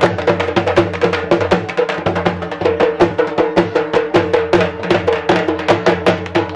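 Dhol drums beaten with sticks in a fast, steady jhumar rhythm, several strikes a second.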